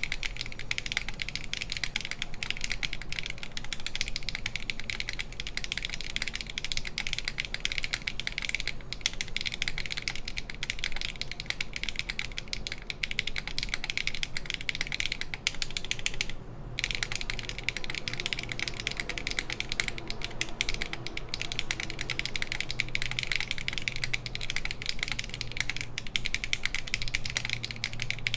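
Fast, continuous typing on a SINGAKBD Kohaku mechanical keyboard with HMX Hyacinth V2U linear switches, GMK Lavender keycaps and a full aluminium plate: a dense stream of key clacks with a brief pause a little past halfway.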